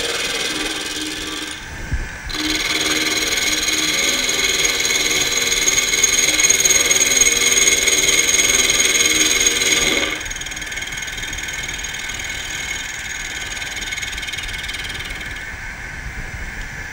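Mini mill spindle running with an end mill taking a light finishing cut across the top of a cast-iron box bed casting. After a brief dip and a low thump about two seconds in, the cutting grows louder, then drops off about ten seconds in as the cutter clears the work, leaving the spindle running more quietly.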